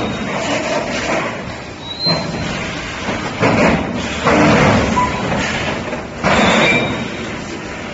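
Industrial machinery of an EPS 3D panel wire-mesh welding line working in cycles: a string of clattering thuds and noisy bursts every second or two, with brief high squeaks, echoing in a large hall.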